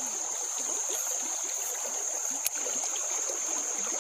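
Shallow stream water running, with a steady high-pitched insect drone over it and one sharp click about two and a half seconds in.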